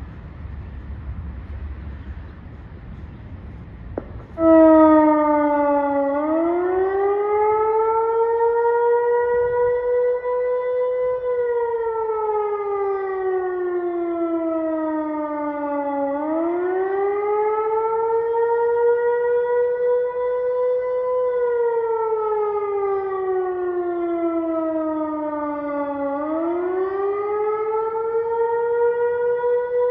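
Federal Signal Modulator 6024 electronic warning siren sounding its wail tone. It comes on sharply about four seconds in, then slowly rises, holds and falls in pitch in cycles of about ten seconds.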